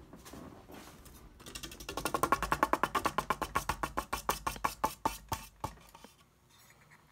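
A 44-inch Hunter Coastal Breeze Plus ceiling fan winding down after being switched off, with a rapid ticking that slows and spreads out as the blades lose speed, then stops.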